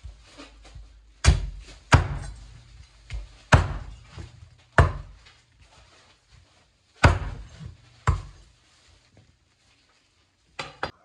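A knife chopping boiled hen on a chopping board: a series of hard chops at uneven intervals, each with a brief ring after it, and a quick double chop near the end.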